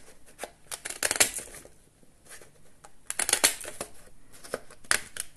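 Paper hole punch crunching through paper to make a decorative edge: short clusters of crisp clicks, about a second in, around three seconds in and again near the end.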